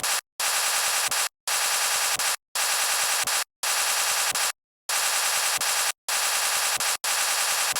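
Human snoring played back sped up: harsh, rapid rattling bursts of about a second each, roughly one a second, separated by short silences. The speed-up makes it sound higher and faster than a normal snore.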